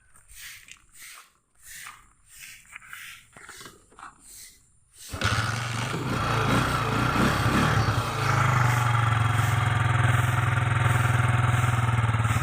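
Single-cylinder Euro 150 motorcycle engine catching suddenly about five seconds in, after a few seconds of faint repeated thumps. It runs unevenly for a couple of seconds, then settles to a steady idle. The engine has a hard-starting carburetor that the mechanic blames on clogged jets.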